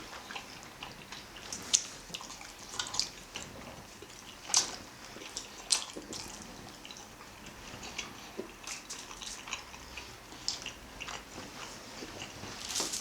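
People chewing momo dumplings close to the microphone: irregular wet mouth noises with scattered sharp clicks, three of them louder in the first half.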